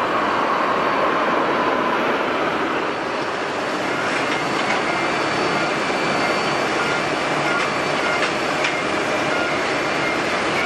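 Jet airliner engines: a steady roar with a faint whine that sinks in pitch near the start.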